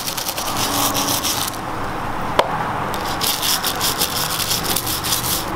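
Small stiff brush scrubbing baked-on carbon off a piston crown wet with foaming oven cleaner: quick back-and-forth strokes in two spells with a short pause between, and a sharp click near the middle.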